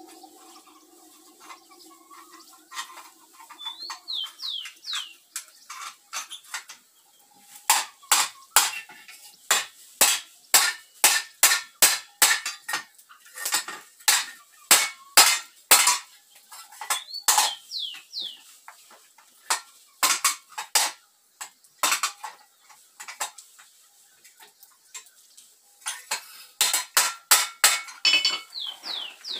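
Hand hammer striking metal, beating a bent seed-planter nozzle part straight. Runs of sharp ringing blows come about two a second, with pauses between the runs.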